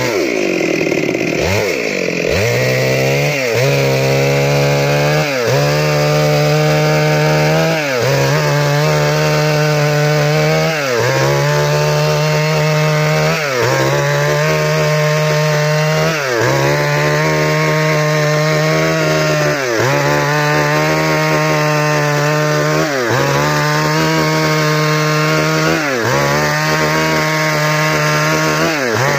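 STIHL two-stroke chainsaw at full throttle ripping lengthwise along a log. The engine pitch sags deeply and climbs back in the first couple of seconds, then dips and recovers about every two and a half to three seconds as the chain bites into the cut and frees up again.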